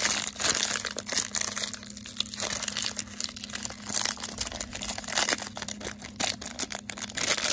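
Thin green plastic film wrapper crinkled and pulled open by hand, giving a dense, irregular run of crackles.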